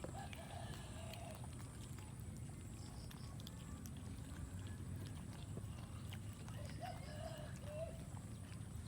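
Faint cat mews, one just after the start and a short run of them about seven seconds in, over a steady low rumble and scattered small clicks.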